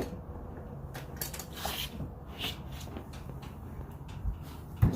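Scuffing and knocking of a refrigerator being manhandled during unloading, with a heavy thump near the end.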